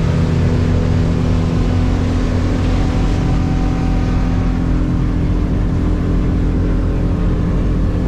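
Motorboat engine running steadily at cruising speed with the boat planing, over the rush of water along the hull.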